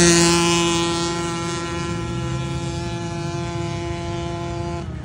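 Quad bike (ATV) racing engines running at steady high revs on a dirt track, a sustained engine note that holds its pitch, loudest at the start. The sound cuts off abruptly near the end.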